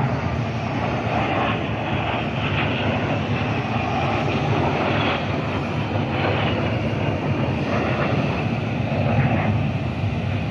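Airplane engine noise: a steady, loud drone with a rushing noise over it.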